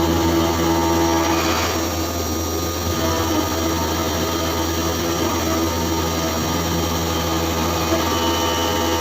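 CNC milling machine running, a steady hum and whine with a brief rise in hissy cutting noise about two seconds in.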